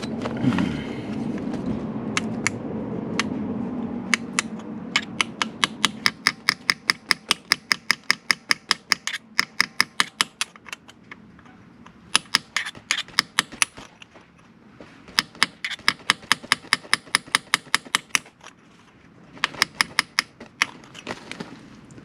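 Hammer rapidly tapping a tool set against a rounded-off motorcycle oil drain bolt, to cut a groove in its head and turn it loose. The sharp metallic taps come about four a second in several runs with short pauses, after a few seconds of low handling and scraping.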